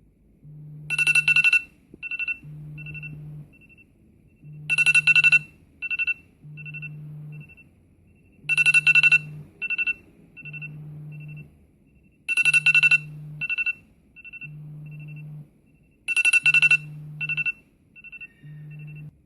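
iPhone ringtone playing: a bright electronic chime phrase repeats five times, about every four seconds, each loud cluster trailed by fading echoed taps. Under it a low note pulses on and off about once a second.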